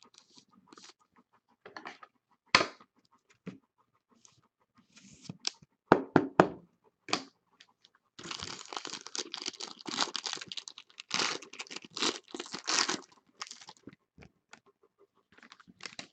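Trading card packaging and cards being handled: scattered clicks and taps, then a few seconds of continuous rustling and crinkling, as if a pack wrapper is being torn open.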